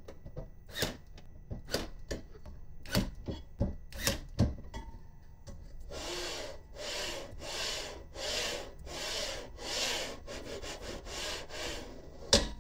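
Parts of a 3D printer kit being handled during assembly: a few light clicks and knocks, then a run of even rubbing strokes, a little over one a second, ending with one sharp knock.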